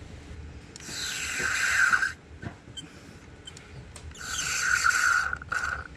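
Two long sucking hisses, each building over about a second and then cutting off sharply, as old fluid and air are drawn out of the clutch fluid reservoir by suction.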